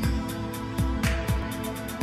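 Channel intro music with a steady beat, and sustained chords coming in at the start.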